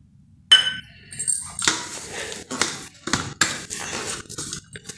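A sharp metallic clink with a brief ring about half a second in, then a hand kneading dough in a stainless steel plate, the dough squashing and scraping against the metal in repeated strokes.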